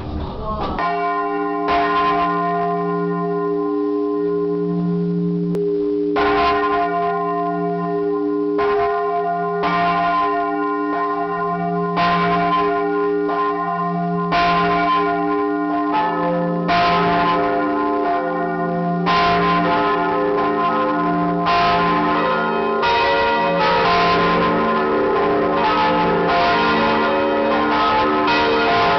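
Large swinging church bells ringing close up, heard from inside the belfry: a strike about every two and a half seconds, each leaving a long ringing hum that pulses slowly. Another bell joins about halfway through, and the strikes grow denser toward the end.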